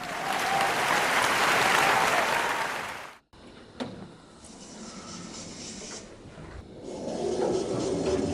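A loud, drawn-out raspy burp lasting about three seconds, cut off abruptly. After a quieter stretch with a single click, a second, lower-pitched sound swells near the end.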